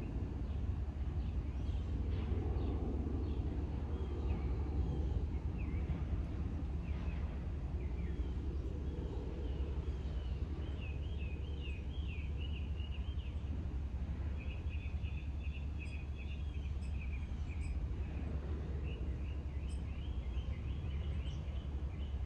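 Outdoor ambience: a steady low rumble under birds chirping and trilling, the bird calls coming thicker and faster in the second half.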